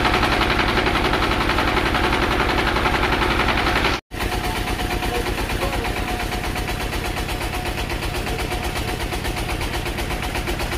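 Engine of a wooden passenger boat running steadily with a fast, even beat. It cuts out for an instant about four seconds in, then carries on a little quieter.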